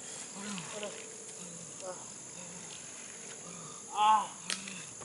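Field insects, crickets, chirring steadily and high-pitched. Through it come a few faint low calls, and one louder, short pitched call about four seconds in.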